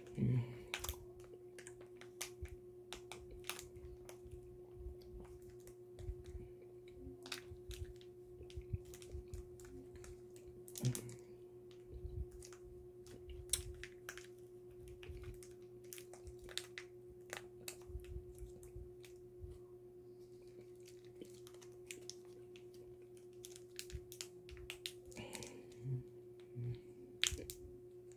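Faint scattered clicks and crinkles of a milk chocolate bar and its wrapper being handled and eaten, with a few sharper clicks now and then, over a steady faint hum.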